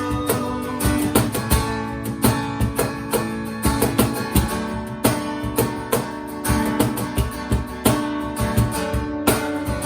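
Worship band playing an instrumental passage with no singing: strummed guitar over sustained chords and a steady beat.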